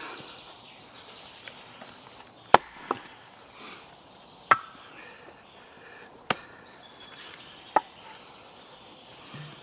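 Small axe splitting a log on a wooden chopping block: five sharp woody blows, two close together about two and a half seconds in, then one roughly every one and a half seconds.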